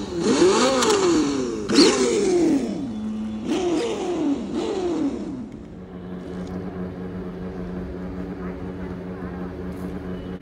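GT Power Bluetooth RC car engine sound simulator playing a synthetic engine through the car's small speaker: four quick revs that rise and fall in pitch over the first five seconds or so, then a steady idle.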